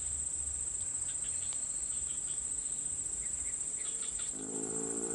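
Steady high-pitched drone of insects, such as crickets. A low steady hum comes in about four seconds in.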